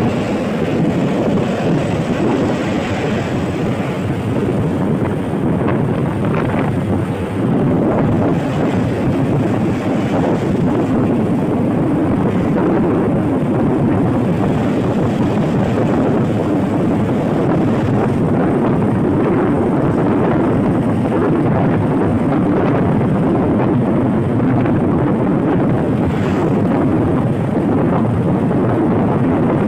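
Steady, loud driving noise of a moving vehicle on the road: engine, tyres and wind blended into one even rush.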